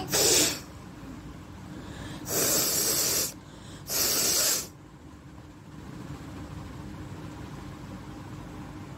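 A person blowing hard through the nose three times: one short blast, then two longer blows of about a second each.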